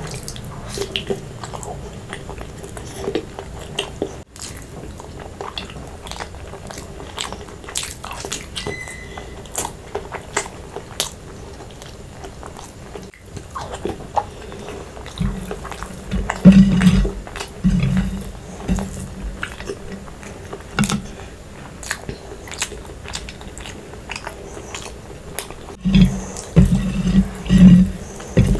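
A person eating close to the microphone: wet chewing and biting with many small clicks, and heavier low thumps of chewing starting about halfway through and again near the end.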